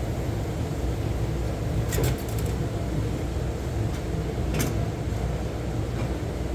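Steady low mechanical hum, with a quick run of sharp clicks about two seconds in and one more click past the middle.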